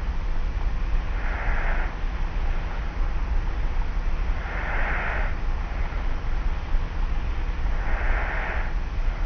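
Slow, light snoring breaths of a sleeper lying on the back, one soft breath about every three seconds, three in all, over a steady low hum and hiss from a cassette tape recorder.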